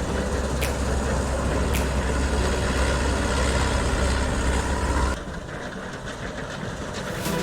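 Combine harvester running, a steady deep engine rumble with a sharp click about once a second. About five seconds in the sound drops abruptly quieter and the deep rumble is gone.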